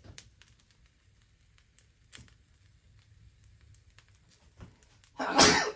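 Fried rice in a wok crackling faintly, with scattered light ticks, then near the end one loud, brief scrape of the spatula working the rice against the wok.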